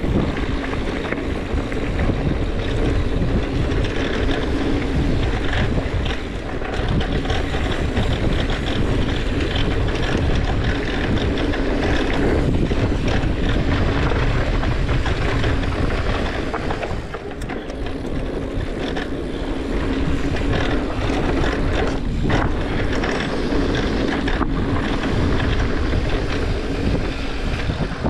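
Wind buffeting a helmet-mounted action camera's microphone while a mountain bike rides a dirt trail, mixed with the rumble and rattle of the tyres and bike over the ground. It eases briefly twice, about a quarter of the way in and again past the middle.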